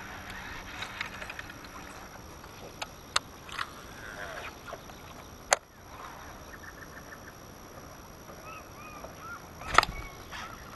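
A few sharp clicks and knocks from a baitcasting rod and reel being handled in an aluminium boat, the loudest knock near the end, with birds calling faintly in the background.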